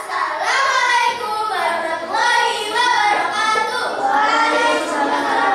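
Children singing a tune, with notes held and sliding in pitch one after another.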